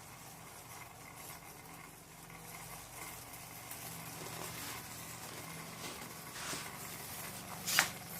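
Small stepper motors of an Arduino model bulldozer running with a faint steady low hum. A brief, loud, sharp noise with a quickly falling tone comes near the end.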